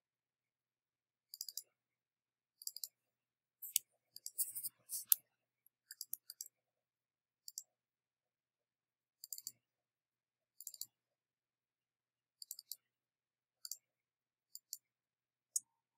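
Faint computer mouse clicks, many in quick double-click pairs, roughly one cluster every second or so, with a denser run of clicks around four to five seconds in. Dead silence between the clicks.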